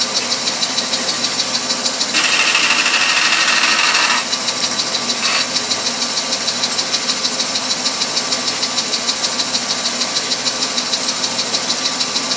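Shopsmith bandsaw running with a steady rapid pulse. About two seconds in, its blade cuts through copper bar stock for about two seconds, louder and with a high-pitched whine over the noise of the cut. A short scrape follows about a second later.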